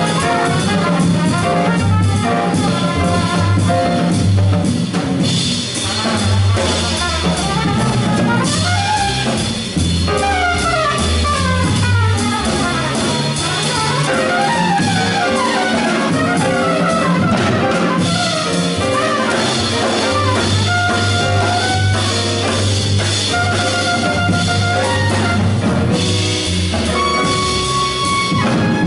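Acoustic jazz quintet playing live: trumpet leads with fast runs, then long held notes, over grand piano, walking upright bass and a drum kit with ride cymbal.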